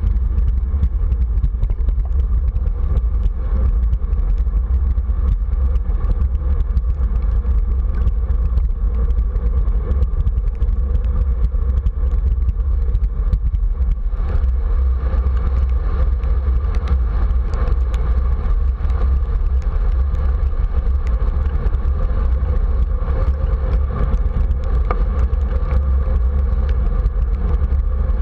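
Steady wind rush buffeting a bike-mounted camera's microphone while riding, with tyre noise on wet pavement and scattered small ticks.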